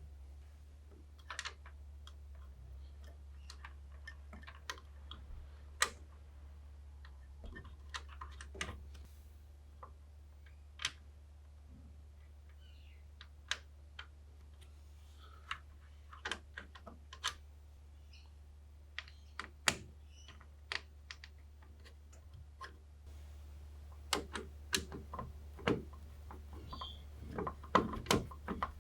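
Scattered light clicks and taps of PC parts being handled and fitted during assembly, sparse at first and coming in quicker clusters near the end, over a low steady hum.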